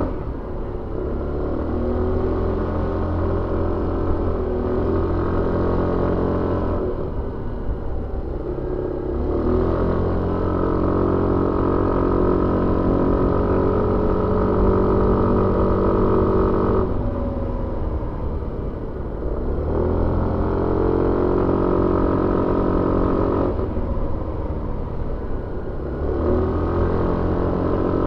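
Suzuki Avenis 125 scooter's single-cylinder engine heard onboard while riding, running steadily under throttle. Three times the rider eases off and the engine note drops, then climbs back as the throttle opens again.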